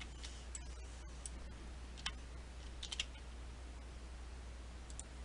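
A few faint, scattered clicks of a computer mouse and keyboard, over a low steady hum.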